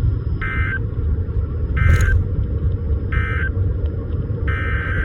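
NOAA Weather Radio EAS (SAME) digital data bursts: three short, raspy bursts about a second apart, the end-of-message code closing the weekly test. A longer burst starts near the end. A steady low rumble runs underneath.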